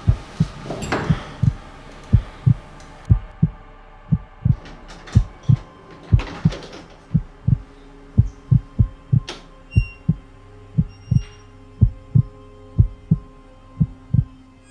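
Heartbeat sound effect: low double thumps, lub-dub, about once a second and somewhat quicker in the second half, over a faint steady hum.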